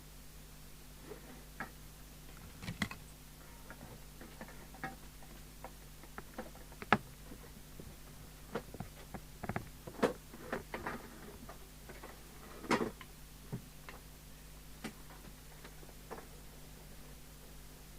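Irregular clicks and small knocks of test equipment and leads being handled and switched on a workbench, the sharpest about seven seconds in and a cluster around ten to thirteen seconds, over a low steady hum.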